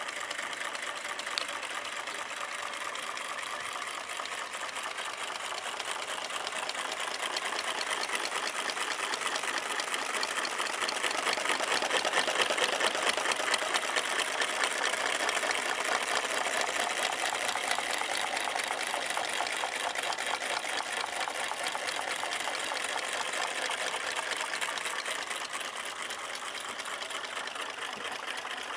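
Homemade drinks-can Stirling engines running on hot water, their wire cranks and plastic flywheels making a fast, steady mechanical rattle. It grows louder toward the middle and eases off near the end.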